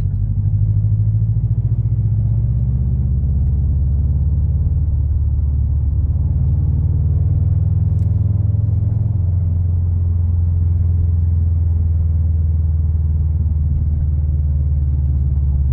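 2020 Subaru WRX STI's turbocharged flat-four engine running with a steady low drone that shifts slightly in pitch about nine seconds in.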